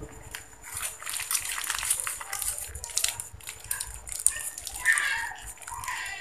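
Plastic bag crinkling as a hand grips and squeezes it over a bowl, a dense crackle that fades about four and a half seconds in. A short voice follows near the end.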